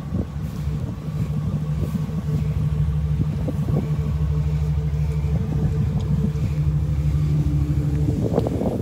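Chevrolet Silverado 2500HD pickup's engine idling with a steady, even hum. Wind buffets the microphone near the end.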